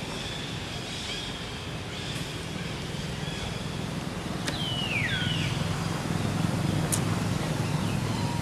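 Outdoor background with a steady low rumble, and about halfway through two high calls that slide down in pitch, plus a couple of sharp clicks.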